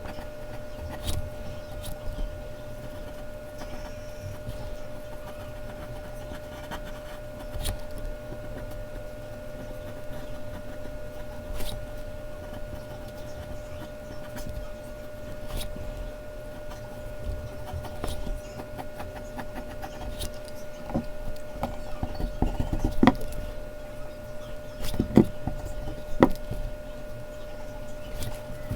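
Mechanical pencil drawing on Bristol paper: scattered light taps and clicks of the pencil and hand, with louder knocks and thumps bunched from about 21 to 27 seconds in, over a steady faint hum.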